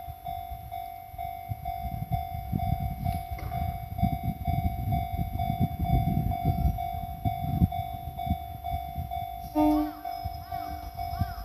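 Japanese railway level-crossing alarm ringing, a steady tone repeating about twice a second, while a train rumbles and clatters over the crossing. A short low tone sounds near the end.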